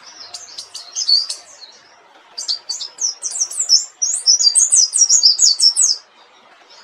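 Pleci dakun (mountain white-eye) singing its rolling 'ngerol' song in quick high twittering notes. There is a short burst, a brief pause, then a longer run of song that stops about a second before the end, over a faint steady hiss.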